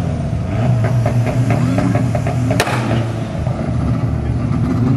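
Car engine held on a two-step launch limiter: it runs steadily with a quick series of crackling exhaust pops, and one sharp bang about two and a half seconds in.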